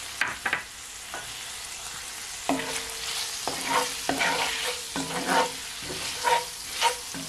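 Salt fish and vegetables sizzling in a hot skillet while a spoon stirs them. A few light knocks come early, and from about two and a half seconds in a spoon scrapes the pan over and over, about one or two strokes a second, each with a short ring.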